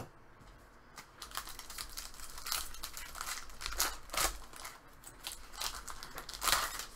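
Foil trading card pack wrapper crinkling and tearing as it is opened, with the cards rustling in the hands; a string of short crackles from about a second in.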